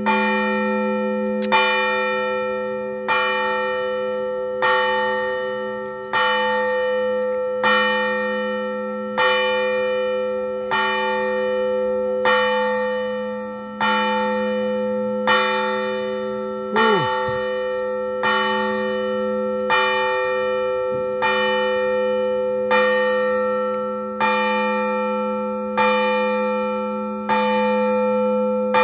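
A large Orthodox church bell tolled alone at a slow, even pace, about one stroke every second and a half, its deep hum ringing on between strokes: the bell calling the faithful to the service.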